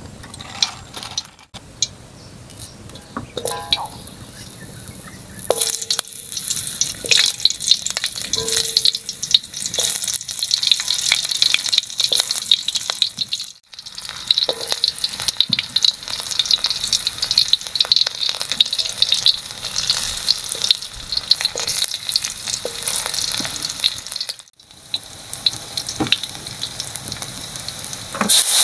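Hot oil sizzling and crackling in a wok as chopped aromatics and green chilies fry, with light ticks from stirring. The sizzle is sparse for the first few seconds, then steady. It grows sharply louder right at the end.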